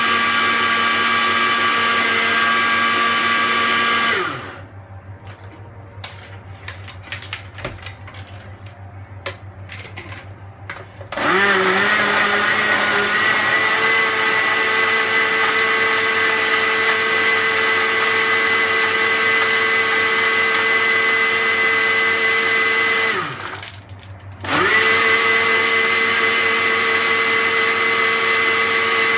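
Moulinex Moulinette blender motor blending watermelon chunks with ice into juice, with a steady whine. About four seconds in the motor winds down and stops, and a few light clicks and knocks follow. About eleven seconds in it starts again with a rising whine, stops for about a second later on, and then runs again.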